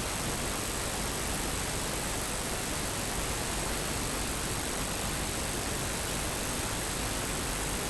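Steady, even rush of a waterfall's falling water, unbroken throughout.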